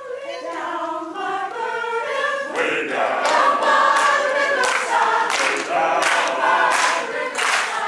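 Choir singing together, largely unaccompanied. About two and a half seconds in, rhythmic handclaps join in, roughly one clap every two-thirds of a second.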